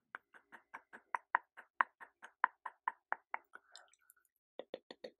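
A fast run of soft, sharp clicking taps close to the microphone, about five a second, stopping briefly and starting again near the end.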